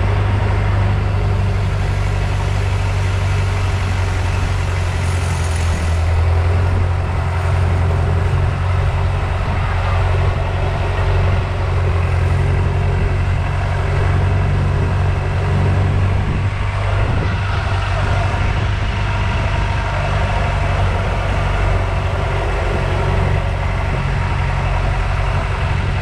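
Long-tail boat's engine running steadily under way, a constant low drone with an even rush of water and wind noise over it.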